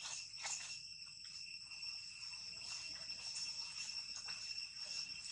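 Steady high-pitched drone of insects, two shrill tones held without a break, with a few faint crackles of dry leaves underfoot.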